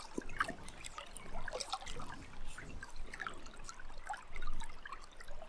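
River water running over a shallow bed, with an irregular patter of small splashes and gurgles.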